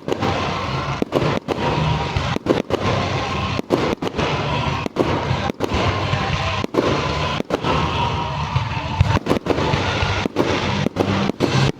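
Fireworks going off in quick succession during a display, a dense run of bangs and crackling with no break. The recording cuts out for an instant many times.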